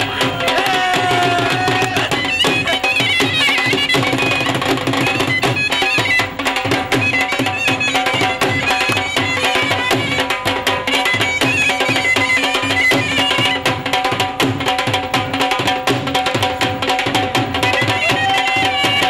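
Live folk dance music: a dhol beaten in a fast, driving rhythm, with a reed wind instrument playing a bending melody over a steady drone.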